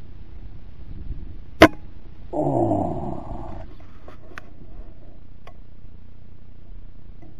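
A single air rifle shot, a sharp crack about one and a half seconds in. About a second later comes a louder low sound lasting about a second and falling in pitch, then a few faint clicks.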